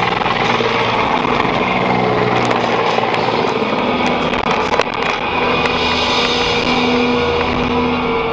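Steady engine and road noise of a car driving at highway speed, heard from inside the cabin.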